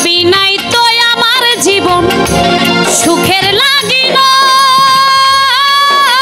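Live Bengali baul folk song: a female voice sings ornamented, sliding notes through a PA, with keyboard accompaniment, settling into a long held note about four seconds in.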